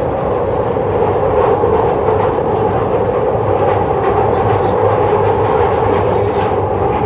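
Glasgow Subway train running through a tunnel, heard from inside the carriage: a steady, loud rumble of wheels on rail. A faint high-pitched squeal comes in the first second.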